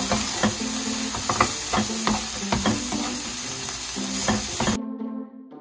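Dried medium anchovies and chopped chili peppers sizzling in oil as they are stir-fried, with a spatula clicking and scraping against the pan at irregular moments. The frying cuts off abruptly near the end, leaving light instrumental music.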